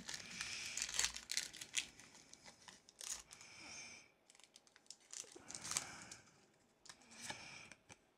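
Foil wrapper of a Pokémon booster pack being torn open and crinkled by hand, in irregular crackling bursts with short pauses between them.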